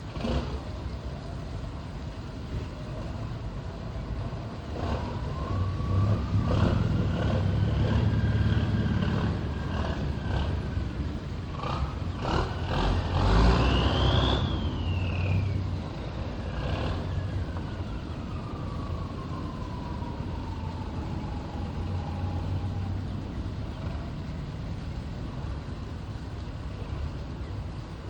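Tugboat's diesel engine running under load, rising in pitch and loudness about five seconds in and slowly easing off in the second half. There are a few knocks along the way.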